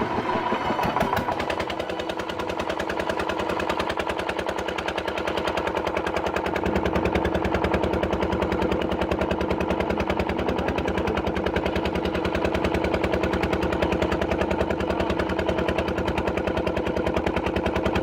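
A small engine running steadily with a rapid, even chugging beat; its low end fills out about six and a half seconds in.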